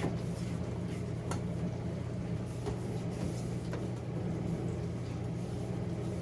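Wiping and scrubbing the inside of a refrigerator: faint rubbing and a few light knocks over a steady low hum.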